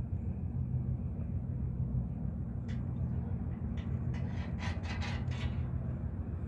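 Steady low rumble of a car's engine and tyres heard from inside the moving car, with a few faint short sounds about halfway through.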